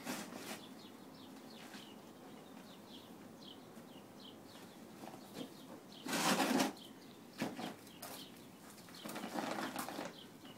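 A horse nosing and pushing a collapsible fabric bin: the fabric rustles and flaps in a few bursts, loudest about six seconds in. Small birds chirp faintly throughout.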